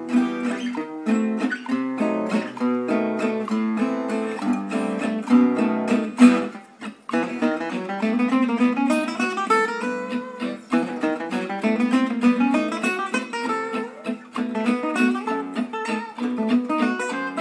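Instrumental background music carried by a plucked, strummed guitar, with a short break about seven seconds in.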